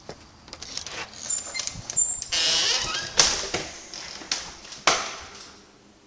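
A door being opened and let swing shut: a high squeak, a short rush of noise, then sharp clacks, about three and five seconds in, as it closes and latches, with footsteps and small knocks on a hardwood floor.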